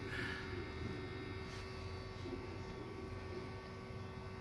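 A steady electrical hum, unbroken throughout.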